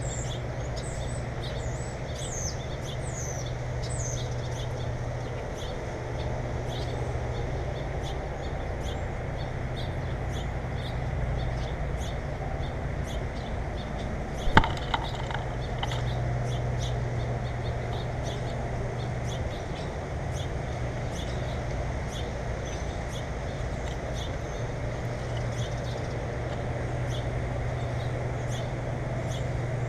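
Small birds giving short high chirps, mostly in the first few seconds, over a steady low hum. About halfway through there is a sharp click, then a fainter one half a second later.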